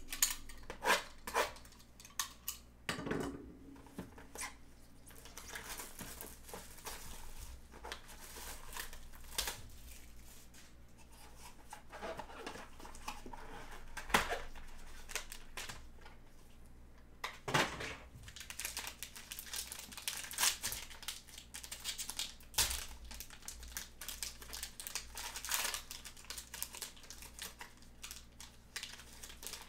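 A cardboard 2022 Topps Tier One hobby box being handled and opened by gloved hands, with scattered knocks and scrapes. In the second half comes the crinkling of the silver foil pack inside as it is lifted out and unwrapped.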